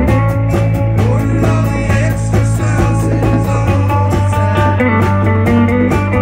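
Live rock band playing: electric guitars over a steady bass line and a drum kit keeping a steady beat.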